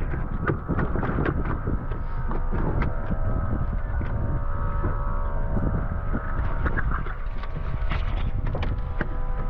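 Wind buffeting the microphone on a boat, over a steady hum, with scattered irregular knocks and taps on the deck.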